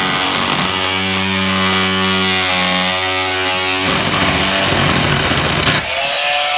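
Oscillating multi-tool cutting through plastic cable trunking: a loud, continuous buzz that changes pitch a few times as the blade works, with the trunking vibrating hard against it.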